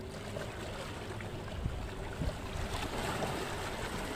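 Sea water washing and splashing against rocks, with wind on the microphone, growing louder toward the end.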